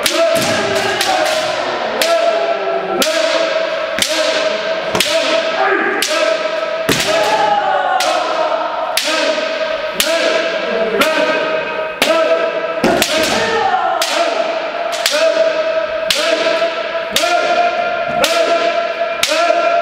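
Bamboo shinai cracking on kendo armour in a steady rhythm of about one strike a second, a few coming closer together near the start. Several fencers' kiai shouts run under them without a break.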